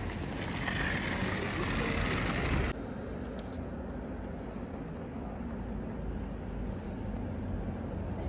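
Steady rumbling vehicle noise: a deep low rumble under a hiss, like a car in motion. It drops a little and changes character suddenly about a third of the way through.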